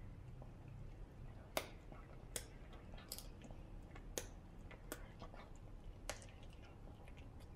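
A small dog gnawing a hard chew stick, with sharp crunching clicks about once a second, some louder than others.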